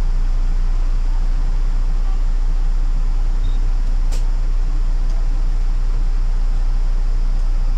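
City bus engine idling at a standstill, heard from inside the cabin: a steady low rumble. A single sharp click comes about four seconds in.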